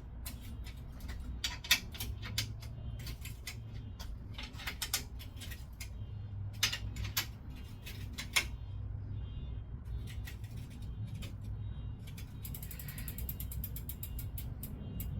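Irregular sharp metal clicks and short ratcheting runs while a bicycle's rubbing rear fender is being adjusted, with a fast run of ticks near the end.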